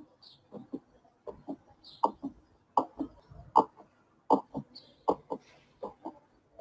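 Recorded heartbeat sound: a steady lub-dub of paired soft thumps at about 80 beats a minute.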